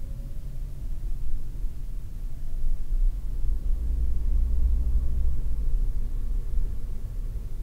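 Low engine and road rumble inside a car cabin as the car speeds up from walking pace, heaviest a few seconds in.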